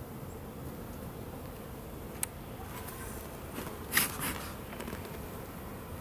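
Honeybees humming around an open hive. A sharp click about two seconds in and a louder knock and scrape about four seconds in come from a metal hive tool prying at the wooden frames.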